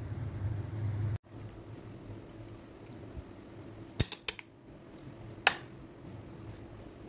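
Chopsticks tapping against a plate while spiced raw beef cubes are mixed: a quick cluster of clicks about four seconds in, and one sharp click a moment later. A low hum in the first second cuts off suddenly.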